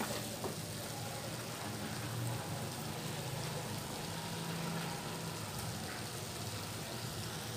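Chickpeas in masala sizzling softly in a steel kadai as a pat of butter melts in, a low, steady hiss.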